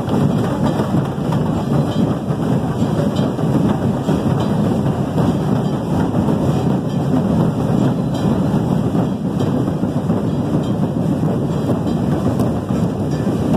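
Loud, steady din of a large festival crowd shouting and cheering together, a dense roar with no single voice standing out.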